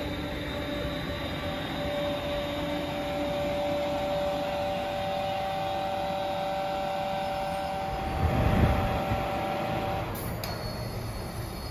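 London Northwestern Railway electric multiple unit moving slowly alongside the platform, its traction equipment giving a steady whine of two held tones over the rumble of the train. A deeper rumble swells about eight seconds in, and the tones stop at about ten seconds.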